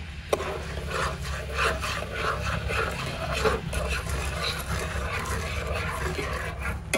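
Metal spoon stirring a thin sauce in a nonstick frying pan, scraping against the bottom of the pan in quick, irregular strokes.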